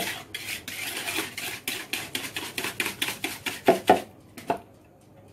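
Wire whisk beating yogurt, oil and sugar in a plastic bowl, rattling against the bowl in rapid even strokes, about five or six a second. A few louder knocks come near the end, then the whisking stops.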